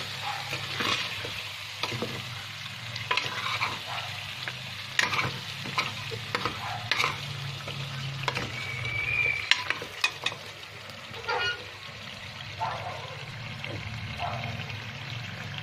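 Chicken in curd and masala sizzling in a metal cooker pot while a steel spoon stirs through it, scraping and clicking against the pot at irregular moments.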